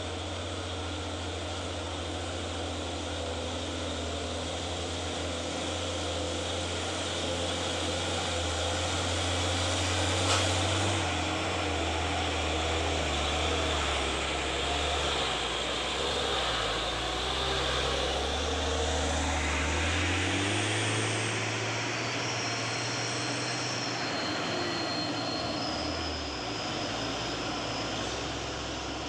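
Diesel engines of Hino 500 Ranger trucks labouring up a steep dirt climb, a steady low drone that steps in pitch a couple of times as a truck passes close by. A single sharp knock about a third of the way in.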